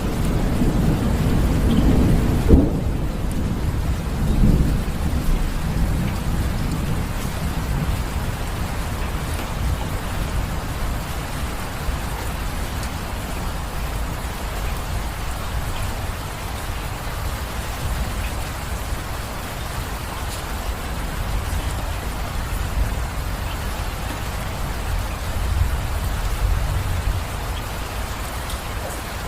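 Steady rain with thunder rumbling over the first few seconds, loudest in a sharp clap about two and a half seconds in, then dying away to rain alone.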